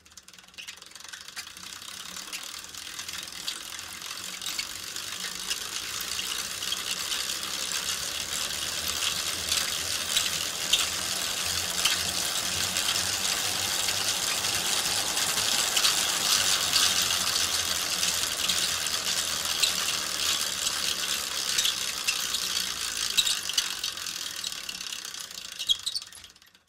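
Bicycle wheels turning with the chain and crankset running, a dense rapid ticking with a metallic creak. It grows louder over the first several seconds, holds, then stops abruptly near the end.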